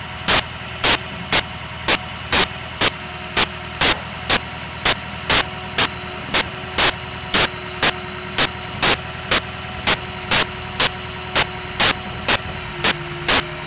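Truck engine idling steadily, overlaid by loud, short bursts of noise that repeat evenly about twice a second.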